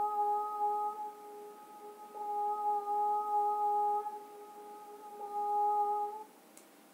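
A woman's voice chanting the healing sounds 'amma' and 'umma' as long notes held steady on one pitch: one ends about a second in, then two more follow with short pauses between them.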